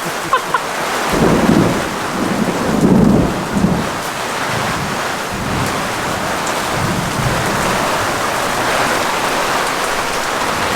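Rain falling steadily, with a roll of thunder that rumbles in about a second in, swells twice, and fades out by about eight seconds.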